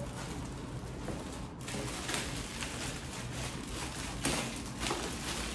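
Plastic wrapping crinkling and rustling as wrapped office-chair parts are handled, with a brief lull about one and a half seconds in.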